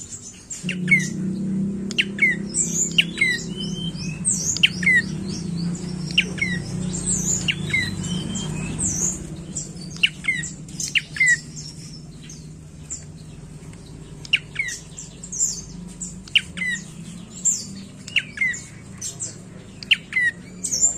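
Caged tailorbird (prenjak coki) calling: sharp, high chips, each a quick downward sweep, given in runs of several a second with short pauses between runs. A low steady hum sits underneath in the first half and fades out about halfway through.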